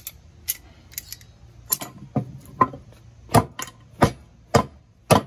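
Hammer blows on chunks of cast iron and slag held on an anvil, knocking the brittle slag off the iron: a run of about a dozen sharp metallic clanks, lighter at first and heavier after the first couple of seconds.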